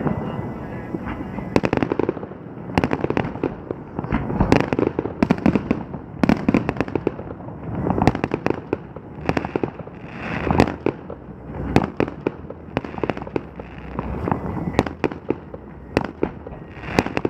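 Fireworks display: an unbroken, irregular run of shell bursts, sharp bangs and crackles, several a second, over a low rumble.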